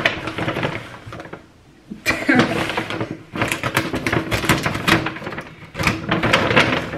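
Plastic grocery bags rustling and crinkling as groceries are pulled out and handled, in several bursts of rustling and light knocks with a short lull about one and a half seconds in.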